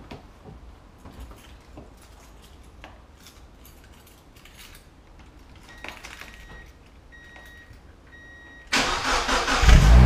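Mazda MX-5 Miata NB's four-cylinder engine being started through a Supercat aftermarket muffler: quiet at first with light clicks and a few short beeps, then the starter cranks near the end and the engine catches into a deep, loud exhaust note.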